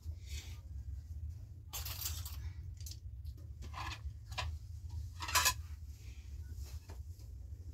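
Plates and dishes clinking and clattering as they are lifted out of a wire dish rack, a run of short sharp knocks with the loudest about five seconds in, over a steady low hum.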